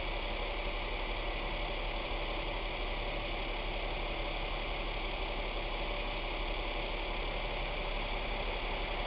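Utility-body work truck's engine idling steadily: a low, even drone under a constant hiss, with no change in speed.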